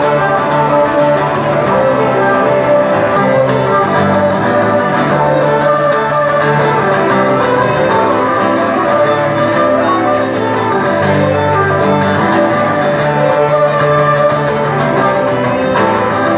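Celtic folk band playing live, a steady instrumental passage with no singing.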